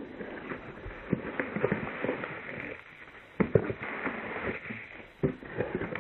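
Packaging rustling and crackling as a shipping box of carded action figures is handled, with scattered knocks and a brief lull about three seconds in.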